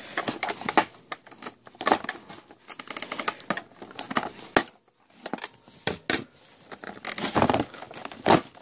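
Scissors snipping at the ties that hold a toy to its cardboard packaging, with crinkling and rustling of the packaging between a run of sharp clicks. The sound drops out briefly about five seconds in.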